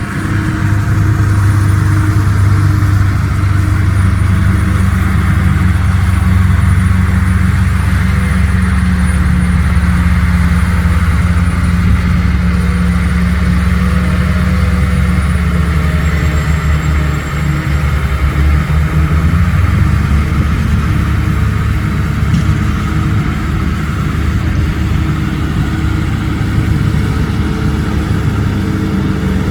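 Heavy diesel engine of a dump truck running steadily under load, dipping briefly about two-thirds of the way through, then its pitch rising for a moment before settling again.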